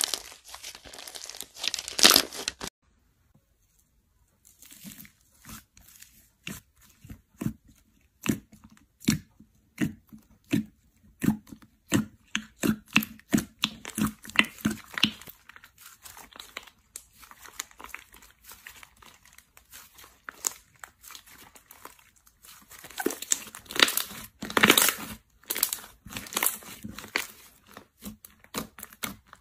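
White slime being stretched, poked and pressed by hand, giving rapid sticky clicks, pops and crackles. The sound stops dead for a couple of seconds about three seconds in, then the clicking resumes.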